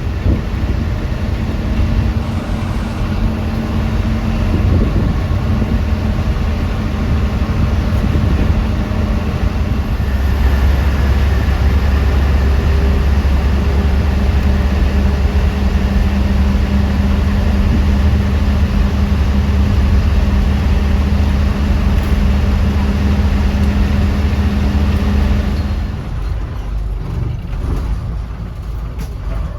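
A TNSTC bus's engine running with a steady low hum as the bus drives. The hum eases off and the sound gets quieter about 26 seconds in.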